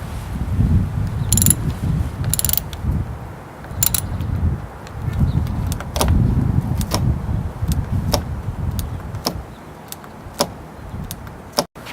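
Hand tools at work on a motorcycle clutch perch on the handlebar: short metallic ratcheting rasps, then scattered sharp clicks, over a low rumble.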